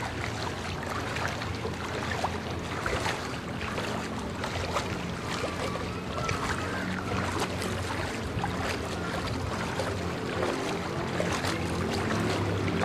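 Wading through deep floodwater on foot: continuous sloshing and splashing as the legs push through the water.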